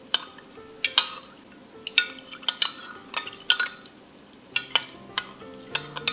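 Metal spoon stirring yeast, salt and water in a glass measuring jug, clinking against the glass about ten times at uneven intervals.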